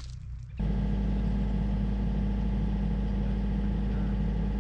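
Diesel engine of a tracked excavator idling steadily, with its bucket at rest; the engine sound comes in abruptly about half a second in, after faint outdoor quiet.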